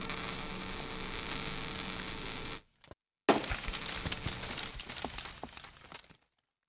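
Sizzling spark sound effect: a steady hiss with a low hum that cuts off after about two and a half seconds. After a short gap a sharp burst of crackling and sizzling with scattered ticks starts and fades away by about six seconds.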